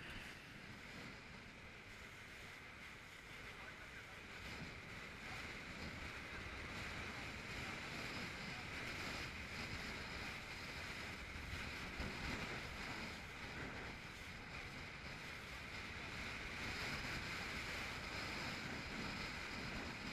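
SR500 inflatable boat under way through rough, wind-driven sea: a steady rush of wind and water, with wind buffeting the microphone. A brief thump about twelve seconds in.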